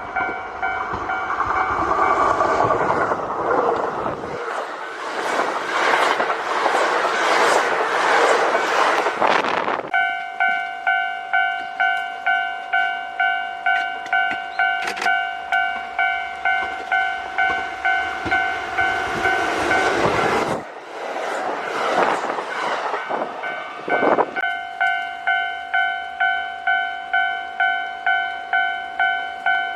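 A Japanese level-crossing alarm rings its repeating electronic clang, pulsing about twice a second. A Kintetsu Osaka Line electric train passes over the crossing for the first ten seconds or so, louder than the alarm. About twenty seconds in, a second, shorter train passage rushes by for three or four seconds, and then the alarm rings on alone.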